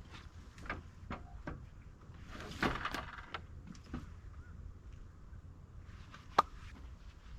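Scattered light knocks and clicks over a low background hiss, with a brief rustle about two and a half seconds in and a sharp click near the end: handling noises of objects being moved.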